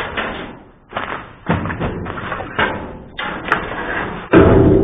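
Thumps and knocks from a dumpster and its contents being handled, with the loudest bang near the end, which rings on briefly.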